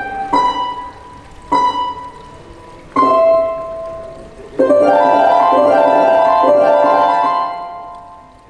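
Plucked strings of the Water Harp, a harp-like instrument: three single notes ringing out a second or so apart, then about halfway a quick flurry of repeated plucked notes that fades away near the end.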